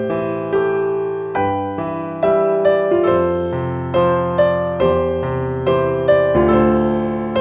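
Background music: a gentle electric piano melody, notes struck one after another and left to ring.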